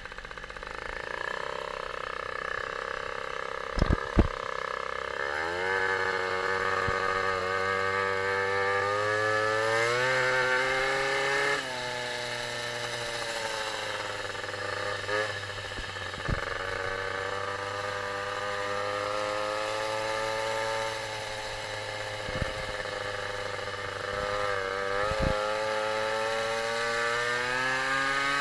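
Two-stroke engine of an MBK 51 moped (AV10 block with an ER1 cylinder, carburetion still being tuned) running under way. Its buzzing note climbs in pitch as it accelerates from about five seconds in, then rises and dips with the throttle. Two sharp knocks come about four seconds in.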